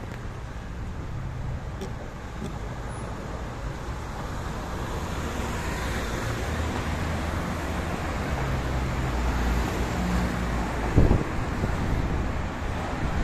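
Street traffic: car engines and tyre noise on the road, swelling as vehicles pass midway. A single sharp thump near the end.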